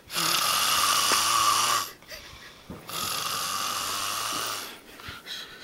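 A man snoring heavily: a loud snore of about two seconds, then after a short pause a second, quieter snore of about the same length.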